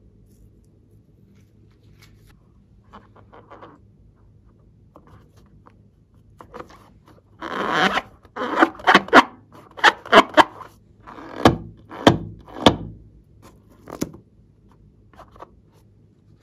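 Fingers gripping and rubbing a rubber balloon, giving a run of short squeaks and rubbing sounds. They start about halfway through after faint handling sounds, and thin out near the end.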